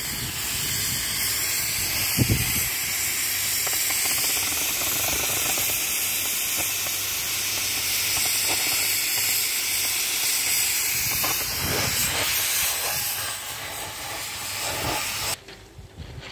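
Gas cutting torch hissing steadily as its flame cuts through a steel rail. The hiss cuts off abruptly near the end.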